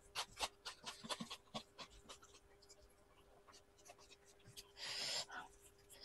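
Faint close-miked eating sounds: wet chewing and mouth clicks, with fingers working rice on a plate. About five seconds in, one short breathy exhale.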